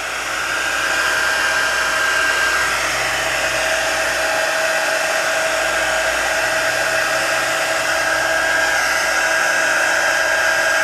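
Hot-air blower running steadily with a constant whine, blowing onto the cracked front glass of an iPhone 6 to soften the adhesive that bonds it to the LCD. It builds up over the first second, then holds steady.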